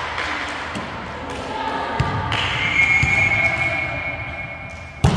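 Volleyball game in an echoing gym: players' drawn-out shouts and calls, with a sharp ball strike about two seconds in and a louder strike at the very end.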